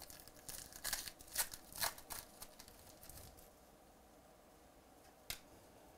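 Trading-card pack wrapper being torn open and crinkled by hand: a quick flurry of sharp crackles over the first three seconds or so, then the cards handled quietly, with a single sharp tick about five seconds in.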